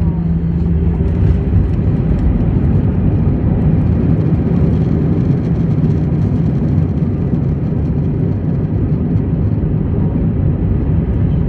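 Airbus A319 cabin noise: the steady, loud rumble of the jet engines and rushing airflow heard from a passenger seat. A low steady hum drops out about a second in and comes back near the end.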